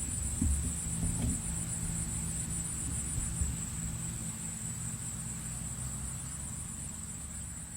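Insects trilling steadily at a high pitch, over a low rumble, with a few soft knocks in the first second or so.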